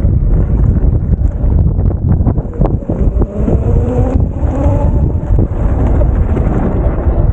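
Heavy wind buffeting on the microphone while riding an e-bike over rough ground, with scattered knocks and rattles. A faint whine and hiss rise in the middle and fade again near the end.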